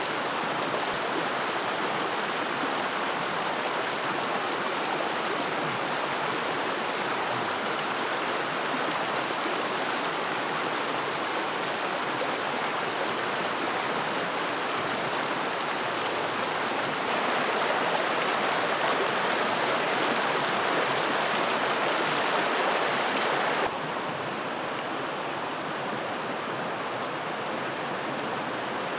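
Creek water flowing steadily, a continuous rushing burble. It grows louder about 17 seconds in, then drops to a duller, softer rush at about 24 seconds.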